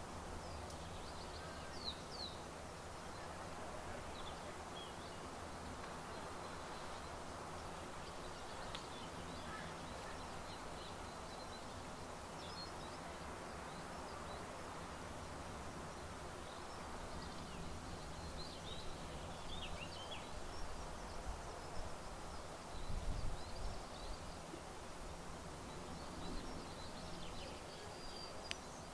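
Steady outdoor background noise with faint, scattered high chirps. A low rumbling swell rises about two-thirds of the way through.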